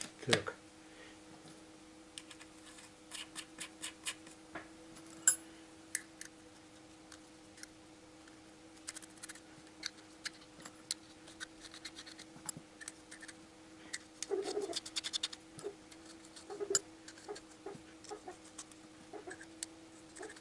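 Scattered light metallic clicks and taps as steel nuts are fitted by hand onto the camshaft bearing-cap studs of a VAZ 2111 eight-valve cylinder head, with a sharper click about five seconds in. A faint steady hum runs underneath.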